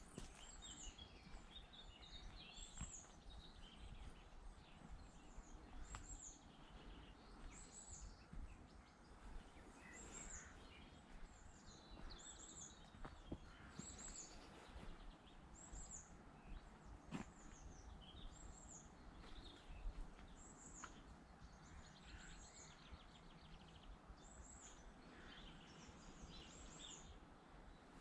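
Woodland birdsong, faint: one bird repeats a short high chirp about once every second or so, with other birds' notes in between, over a low rumble.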